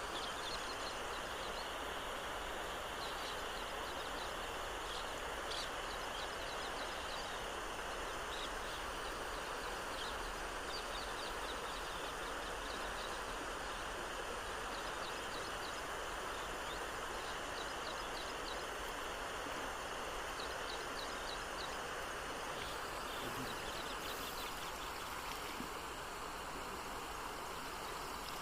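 Steady rushing noise of flowing river water, with faint runs of short high chirps repeating over it.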